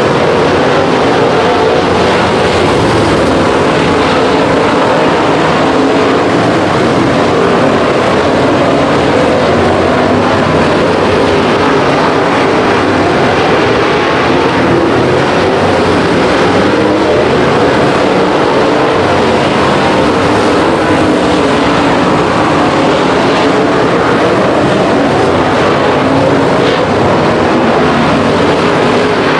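Several race car engines running loud and steady on the track, merging into one continuous roar of engine noise.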